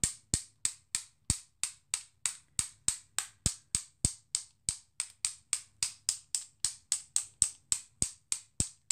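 A white paint marker tapped over and over to flick splatters of paint onto a card: an even run of sharp clicks, about three and a half a second, some louder than others.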